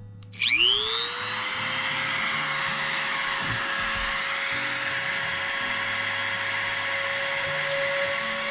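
Dremel rotary tool with a drill bit starting up about half a second in, its whine rising as the motor spins up, then running at a steady high speed as the bit is pressed against a ceramic magnet. The bit makes almost no headway into the hard magnet.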